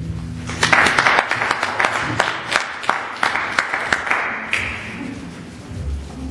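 Audience applauding, beginning about half a second in and stopping abruptly after about four seconds. At the very start an acoustic guitar chord is still ringing out.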